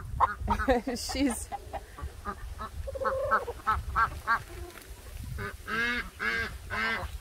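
Domestic ducks quacking: a few calls near the start and a quick run of calls near the end, mixed with the calls of chickens.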